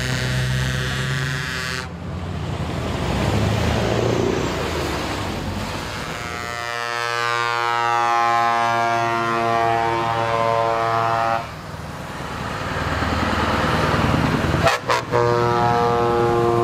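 Truck air horns blowing chords as heavy trucks drive past, over the trucks' engine and exhaust noise: a blast at the start, a long one of about five seconds in the middle, and another starting near the end.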